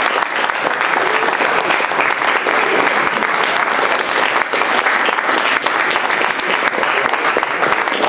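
Audience applauding steadily, many hands clapping at once at the end of a song.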